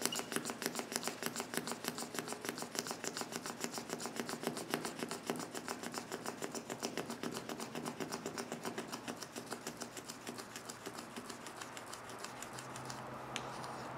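Single-edge razor blade scraping cured windshield-repair resin off the glass in quick, short, rhythmic strokes, about five a second, growing fainter over the last few seconds. A faint steady hum comes in near the end.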